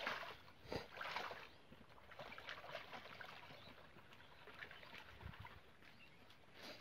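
Faint sloshing and splashing of shallow pond water as a net scoop is dragged through it and legs wade, with a few louder swishes in the first second or so.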